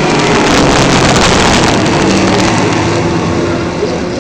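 A pack of race trucks' engines running hard as they pass, swelling to their loudest about one to two seconds in and then easing off a little.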